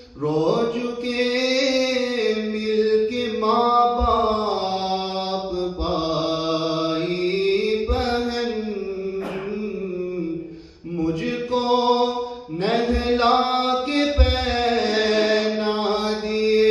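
A solo male voice sings an unaccompanied Urdu naat, drawing out long wavering notes. He pauses briefly for breath about eleven and twelve and a half seconds in.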